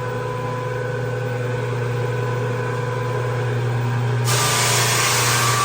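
Rented floor drum sander running with a steady motor hum. About four seconds in, a loud hiss of sanding starts abruptly and continues over the hum.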